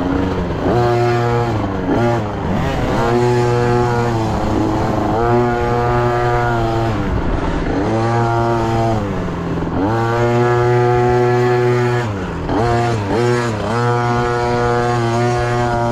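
Dirt bike engine being ridden on and off the throttle, its pitch climbing, holding and dropping back about half a dozen times, with a few quick blips near the end.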